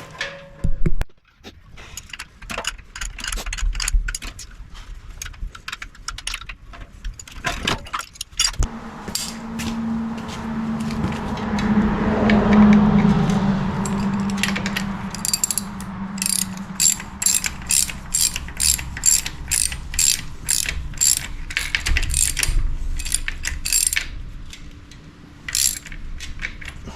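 Hand socket ratchet clicking in quick, even back-strokes, about two clicks a second, as bolts on an engine are run down. A sharp clank comes about a second in, and a steady low hum runs through the middle.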